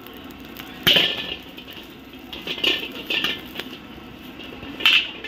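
Steel ladle scraping and knocking against a large wok as freshly fried rice is scooped out, with sharp metallic clanks about a second in, a couple in the middle, and a loud one near the end.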